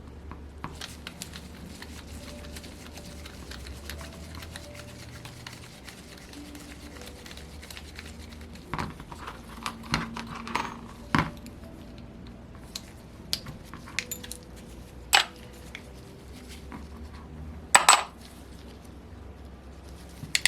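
Metal hand tools and small engine parts clinking and tapping during engine disassembly, scattered sharp clicks with several louder clinks in the second half, over a low steady hum.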